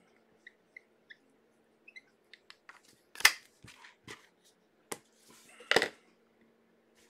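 Light clicks and taps from hands handling a Sharpie marker and card holders on a table. A few faint ticks come in the first two seconds, then sharper snaps about three seconds in and again near six seconds, the second with a brief scuffing rustle.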